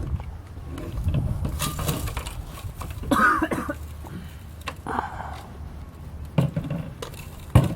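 Irregular clicks, knocks and rattles of broken digital-camera pieces and screen glass being handled in an Oster blender jar, with short scraping clatters about three and five seconds in.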